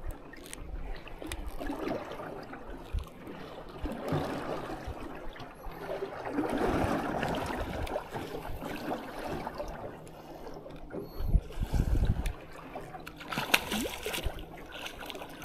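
Choppy river water slapping and trickling against a small fishing boat's hull, with a burst of splashing near the end as the hooked blue catfish reaches the surface.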